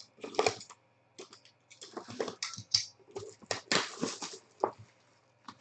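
Trading-card box and its packaging being handled and opened: irregular crinkling, rustling and tearing with sharp clicks and taps, busiest around two and four seconds in.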